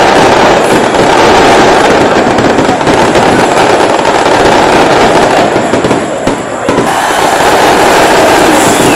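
Stadium crowd in the stands, loud and distorted on a phone microphone, with a dense crackle throughout that dips briefly about six seconds in.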